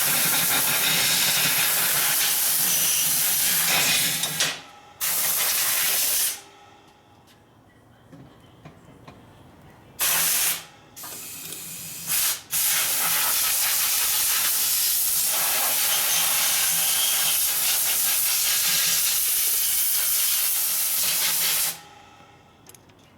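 Loud hiss of a pressurized spray released in bursts. There is a long blast of about four seconds, then a shorter one, two brief puffs around ten and twelve seconds in, and a steady blast of about nine seconds that cuts off near the end.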